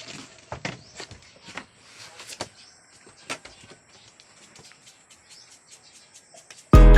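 Irregular light taps and knocks, a few a second. Loud music with sustained, ringing piano-like notes comes in just before the end.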